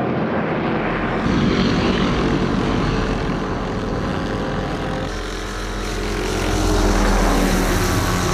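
Loud engine noise, a dense steady drone with rapid low pulsing. Its pitch shifts about five seconds in, and it swells louder around seven seconds.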